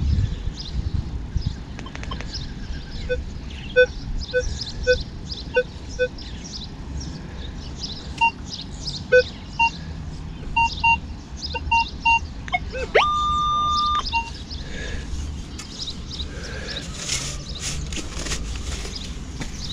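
Metal detector sounding short target beeps as its coil sweeps over sand: several low beeps, then quicker higher-pitched beeps in pairs, and about two-thirds of the way through a rising tone that holds steady for about a second.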